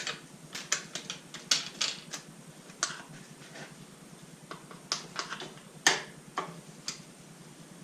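Irregular metallic clicks and clinks of hand tools and bolts being worked on a V8 engine during teardown, a dozen or more scattered sharp strikes with no steady rhythm.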